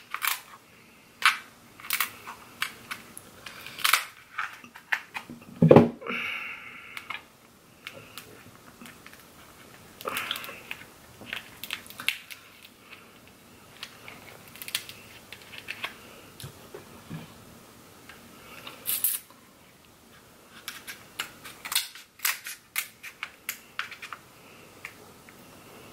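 Crab leg shells being cracked and snapped apart by hand: irregular sharp clicks and cracks, several closely bunched, the loudest about six seconds in.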